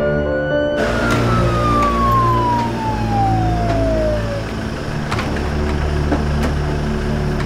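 Ambulance siren winding down in one long falling tone and dying out as the vehicle pulls up, over the steady rumble of its engine running; a couple of sharp clicks follow a few seconds later.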